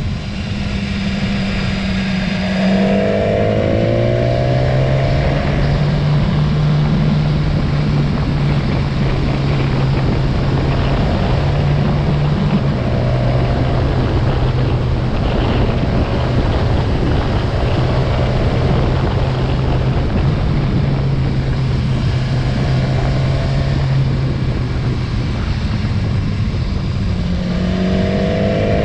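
Motorcycle engine running under way, picking up revs about three seconds in and then holding a steady cruising note, over a constant rush of wind and road noise. The revs rise again near the end.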